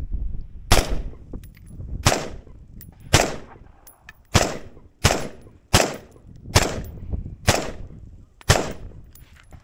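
Nine single gunshots from an AR-style carbine fired at a slow, steady pace, roughly one a second. Each is a sharp crack with a short echo after it: the rifle's first test firing, cycling and shooting as it should.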